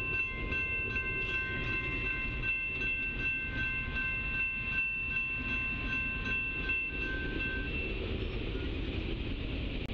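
Railroad grade-crossing warning bell ringing with a fast, even pulse and stopping about eight seconds in as the crossing gates rise, over a steady low rumble.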